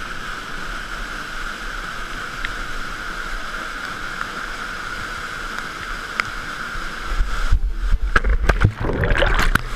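Steady rushing of a mountain-canyon waterfall. About seven and a half seconds in, loud irregular knocks and low buffeting on the microphone as the camera wearer goes over the edge toward the pool.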